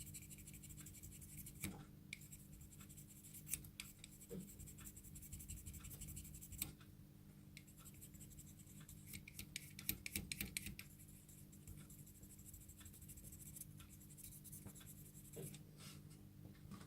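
Faint, scattered light clicks and scratching over a steady low hum, loudest in a cluster of clicks a little past halfway.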